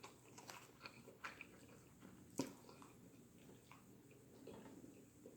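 Faint, wet chewing and mouth sounds of someone eating, with scattered soft clicks and one sharper click about two and a half seconds in.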